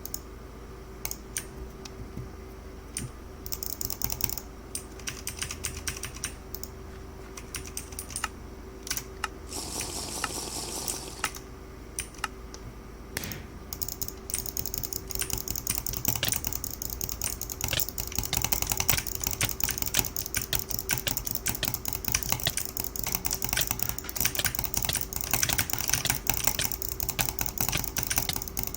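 Small sharp clicks in quick succession, typing-like. They come sparse and irregular at first, then turn into a dense, fast run about halfway through. A faint steady hum sits underneath, and a brief hiss comes near the middle.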